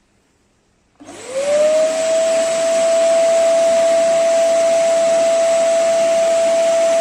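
PowerPac bagless cyclone vacuum cleaner switched on about a second in. Its motor whine rises quickly and settles into a steady high tone over a loud rush of air, then runs steadily.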